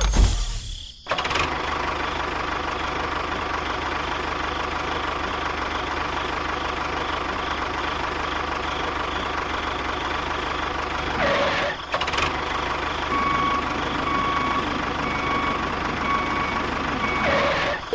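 Steady engine-like running noise of a small machine, broken briefly twice. Near the end a high beep repeats about once a second, five times, like a reversing alarm.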